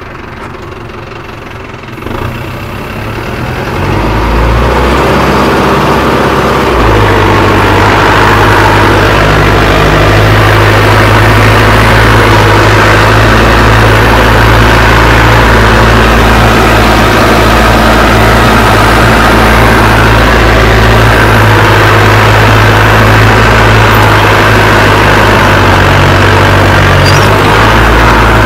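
Modified turbo diesel engine of a Mahindra Arjun Novo 605 4x4 tractor building up about two seconds in and rising again about seven seconds in, then running hard and steady under load while pulling a cultivator through the soil.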